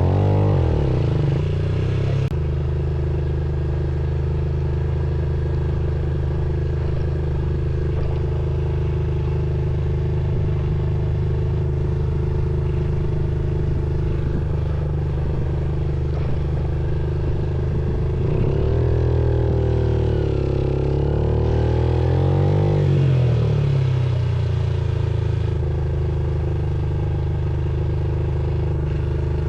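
Motorcycle engine running steadily under way. Its engine note rises and falls about two-thirds of the way through.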